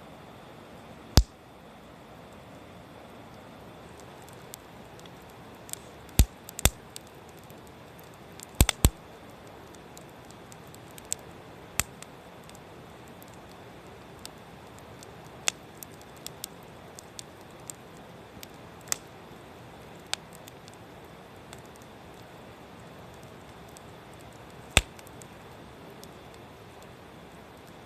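Firewood burning in a mesh fire pit, crackling with sharp, irregular pops over a low steady hiss.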